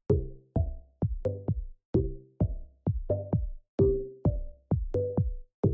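Background music: an electronic track with a steady drum-machine beat, sharp hits about twice a second, each followed by short fading synth notes.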